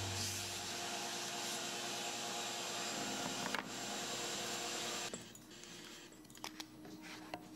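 A steady rushing noise that cuts off abruptly about five seconds in. After it, a few light knocks of MDF panels being handled and set against each other.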